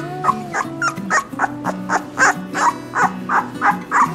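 Young Cane Corso puppy crying in a run of short yips, about three a second, over background music.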